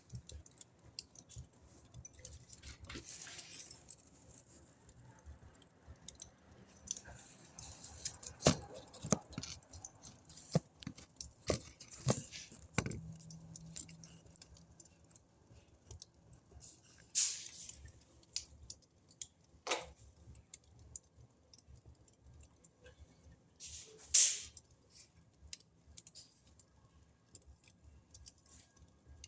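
Wood fire burning in a fireplace, crackling with irregular small snaps and scattered sharper pops. The loudest pops come about 8, 17 and 24 seconds in.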